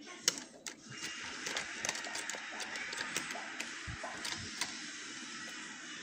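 Small metal clicks and scrapes of a dimple pick working the pins of a Mul-T-Lock Interactive dimple lock cylinder under tension. A steady background noise sets in about a second in.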